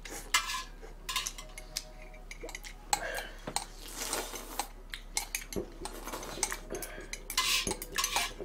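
A metal eating utensil clinking and scraping on a thin aluminium pot lid being used as a plate, in many short irregular clicks. Between them come noodle slurps, the longest about three to four seconds in.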